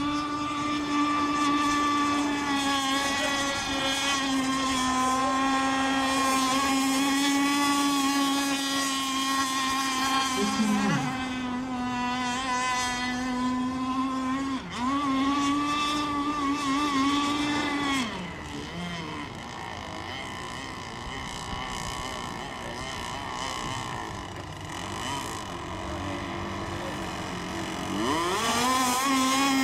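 Radio-controlled racing boat's motor running at high speed with a steady high-pitched whine. Its pitch dips briefly three times in the middle stretch, the sound grows fainter for several seconds, then loudens and rises in pitch near the end as the boat comes back.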